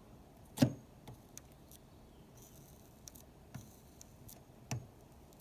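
Scattered light clicks and taps of a soldering iron working on plastic trim while tack-welding a split, with one sharper knock about half a second in.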